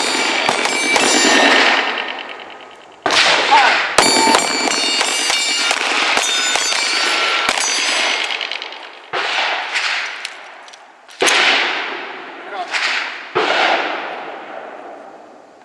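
Handgun shots striking steel targets: about half a dozen sharp shots spaced unevenly, each followed by the steel plates ringing and slowly dying away.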